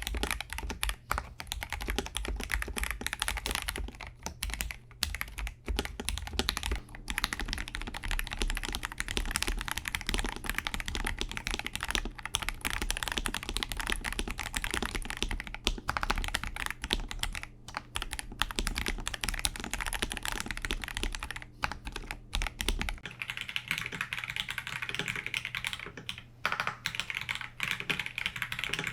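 Continuous fast typing on a KBD67 Lite R3 mechanical keyboard with Akko Starfish switches, a dense run of keystroke clacks. About three-quarters of the way through the sound turns brighter, with less low end.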